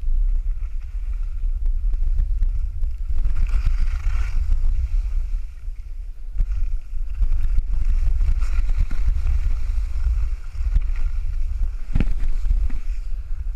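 Wind rumbling over a GoPro's microphone as a skier runs downhill, with skis hissing and scraping on packed snow. A single sharp click comes near the end.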